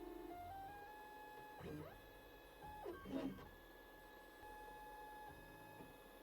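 FDM 3D printer's stepper motors whining faintly as the print head moves, the pitch jumping between steady tones. Twice, about two and three seconds in, the whine swoops quickly down and back up.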